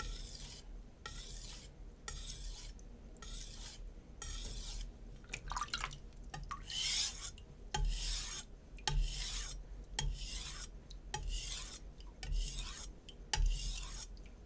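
A Shun Classic chef's knife's steel edge scraping across a wet Naniwa Super Stone 400-grit whetstone in a steady series of sharpening strokes, about one a second. Each stroke is a short hissing rasp.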